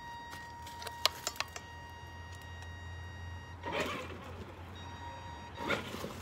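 Electric RC car giving off a steady high-pitched tone, an unexplained noise, which stops about three and a half seconds in. Several sharp clicks come about a second in, and two short noisy bursts come later.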